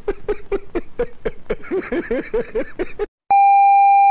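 A man laughing hard in quick repeated 'ha-ha-ha' pulses, about four or five a second, for about three seconds. Then a loud steady electronic beep, about a second long, near the end.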